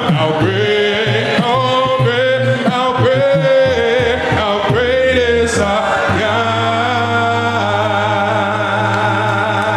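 Male song leaders and congregation singing a worship song a cappella, voices in harmony; about six seconds in they settle on one long held chord.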